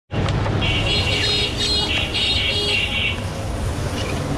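Steady rumble of street traffic, with a high-pitched tone sounding from about half a second in to about three seconds in.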